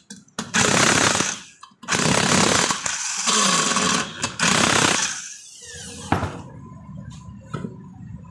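Power tool running in four bursts of about a second each, with short breaks between, then stopping and followed by a few light clicks of tools.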